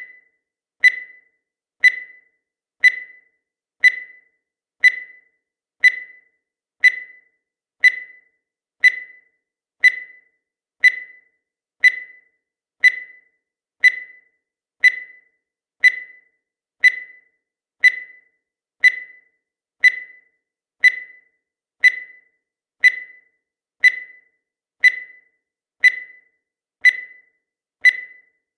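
Countdown timer's electronic beep: one short, high tone about once a second, each dying away quickly, marking off the seconds of the count.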